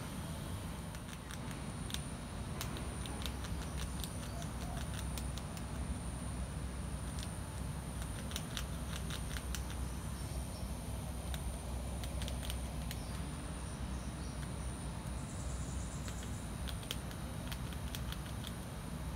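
Azara's agouti foraging in dry leaf litter: sharp, short crackling clicks in clusters, thickest in the first half and again briefly near the end, over a steady low rumble.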